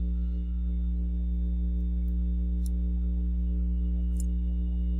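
Steady low electrical hum under a few faint light clicks of metal tweezers handling small parts inside an opened iPad's housing.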